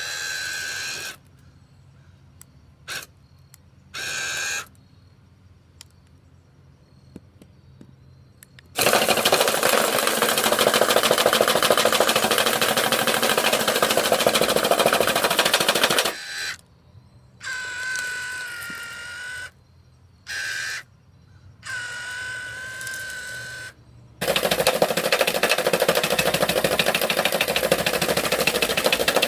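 iRobot Looj gutter-cleaning robot's electric motor whining in short stop-start runs, then twice breaking into a loud, rapid rattling for several seconds, the second starting near the end, as it works through leaves in the gutter.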